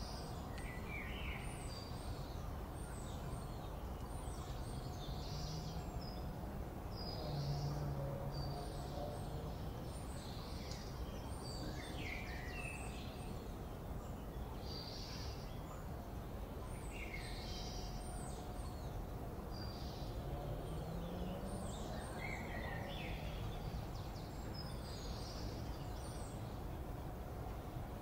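Morning park ambience: several small birds chirping and calling on and off, over a steady low background rumble. A brief low swell comes about seven seconds in and again near twenty seconds.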